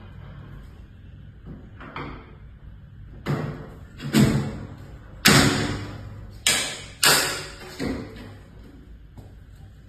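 Metal frame of a collapsible camera cart clanking as its top shelf and handle are shifted: half a dozen sharp clunks with a short ring, the loudest about five seconds in.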